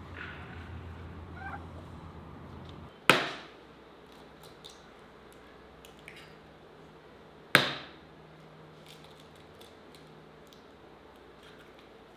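Two sharp knocks, about four and a half seconds apart, each ringing out briefly, over a faint steady background.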